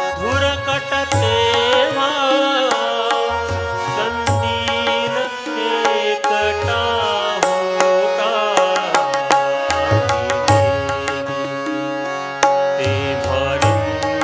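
A man singing a Marathi song in a wavering, ornamented line, accompanied by tabla strokes with deep bass-drum thumps and steady held notes underneath.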